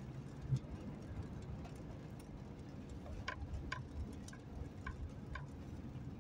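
Low, steady road-and-rain rumble inside a moving car's cabin. About three seconds in comes a run of five evenly spaced ticks, about two a second: the car's turn-signal indicator ticking.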